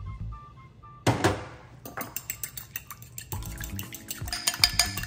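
A metal fork beating a raw egg with water in a glass bowl: rapid clicking of fork against glass, starting about two seconds in and growing faster and louder. A single sharp sound comes about a second in, before the beating starts.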